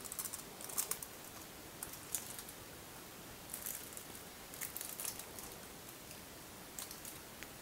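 Silicone spatula smoothing thick brownie batter in a foil-lined metal baking pan: faint, soft scrapes and squishes that come and go.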